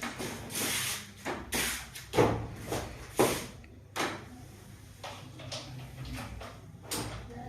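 Rustling and scraping as a person shifts position on a treatment table, with several short knocks and thuds.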